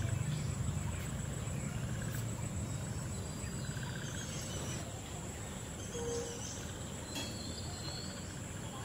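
Insects shrilling steadily at a high pitch, with a few short bird chirps and a low rumble that eases after the first couple of seconds.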